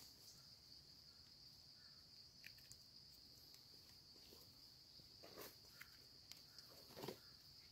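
Faint steady high-pitched insect drone, with a few soft rustles of a hand in dry leaf litter while mushrooms are picked.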